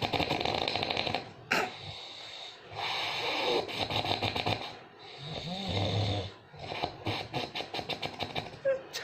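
A person snoring loudly, a run of long fluttering snores one after another about every two seconds, with a short high squeak about a second and a half in.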